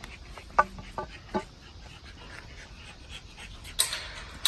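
Dogs panting, with three short sharp sounds about half a second apart near the start and a brief noisy burst near the end.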